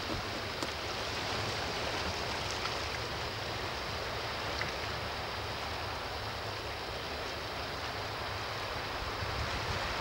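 Calm sea washing steadily against shoreline rocks: a continuous, even rush of water with a few faint ticks.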